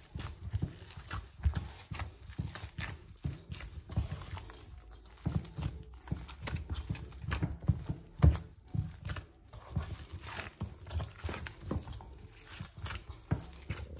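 Hands kneading soft naan dough in a stainless-steel bowl while oil is worked into it: irregular dull knocks and thumps, several a second, with one louder thump about eight seconds in.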